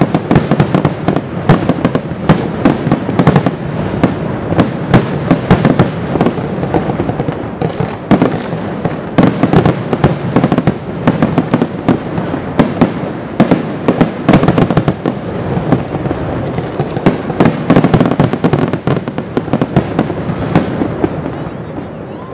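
Fireworks finale barrage: aerial shells bursting in rapid succession, many sharp booms and cracks a second, thinning out near the end.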